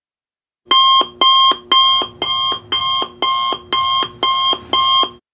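Countdown timer alarm going off as the time runs out: a repeating electronic alarm tone. It starts about a second in and sounds nine times, at roughly two pulses a second.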